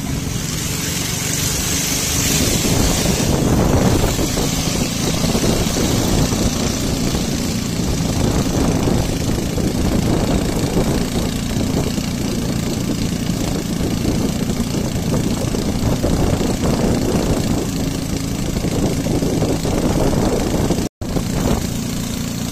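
Boat engine running steadily at speed, with wind and water rushing past, the hiss strongest in the first few seconds. The sound cuts out for an instant near the end.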